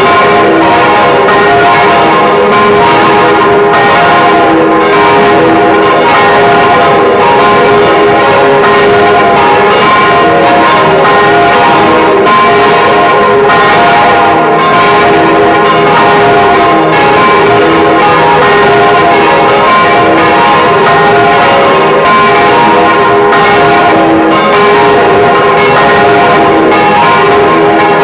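Swinging church bells from a four-bell peal cast by the Causard foundry of Colmar, tuned F, A-flat, B-flat and C, ringing together. Strike follows strike with no break, heard very loud from close up inside the belfry.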